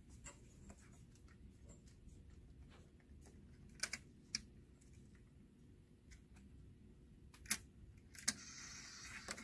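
Scattered light clicks and taps from a Baxter Colleague infusion pump's keypad and front being pressed and handled, like typing. A couple of sharper clicks come about four seconds in, and two more near the end.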